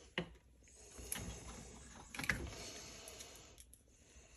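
Small screws being set into an RC differential case by hand: a few light clicks, about three, among faint handling noise.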